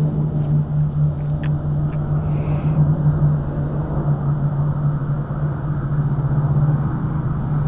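Four-engine military cargo jet flying overhead, its turbofan engines giving a steady roar with a strong low drone.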